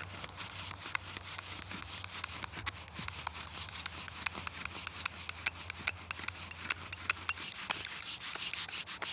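Bow drill being worked: a spindle spun back and forth by a rib-bone bow's cord, grinding in the burned-in socket of the fireboard with a steady rubbing and many small irregular clicks. It is the friction stage that heats the wood and builds hot carbon dust for an ember.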